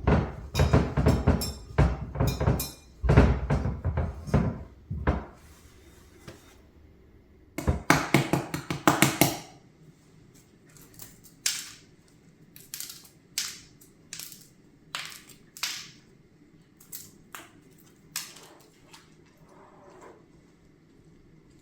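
Kitchenware being handled: quick runs of knocks and clatters over the first five seconds and again about eight seconds in, then separate sharp taps and clicks about once a second.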